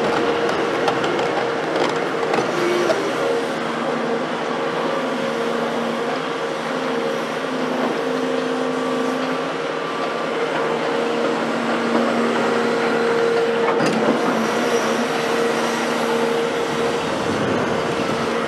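Caterpillar hydraulic excavator running close by: a steady diesel drone with a whining tone from the engine and hydraulics, and a lower tone that steps in and out as the arm works.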